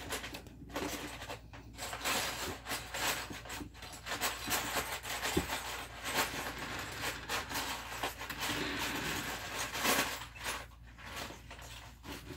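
Plastic Lego bricks rustling, clicking and rattling as they are handled and rummaged through in a bin, with small taps of pieces being pressed onto the build.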